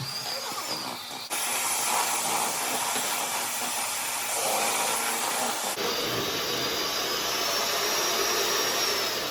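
Electric hand mixer beating softened butter: a steady motor whir with a high whine. It gets louder about a second in, and the whine drops in pitch about six seconds in.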